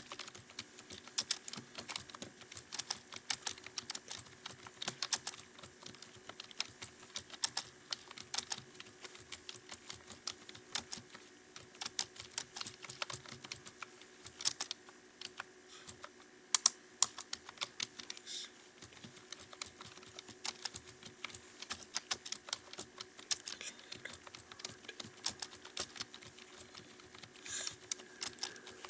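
Fast, continuous typing on a computer keyboard: a rapid, irregular stream of key clicks, with a few louder strokes and a short slower stretch past the middle.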